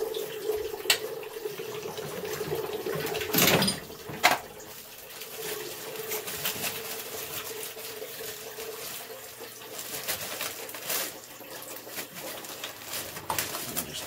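Hands handling a water heater's gas control valve and its plastic packaging: plastic crinkling and small clicks and knocks, the loudest a brief rustle about three and a half seconds in. Underneath, a steady low tone runs until about two-thirds of the way through, then fades.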